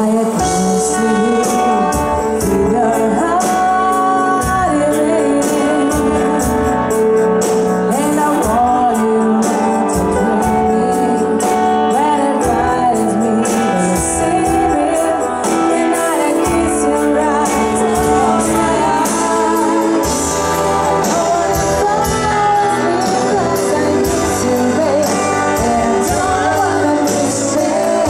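Live band playing a song with a singer, over a steady beat.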